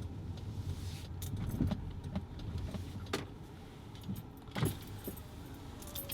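Low steady rumble of a car, with a few scattered light clicks and jingles.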